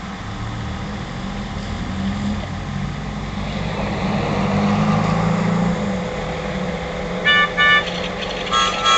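Road traffic, with a vehicle engine running steadily. Near the end a car horn toots twice in quick succession, then sounds once more.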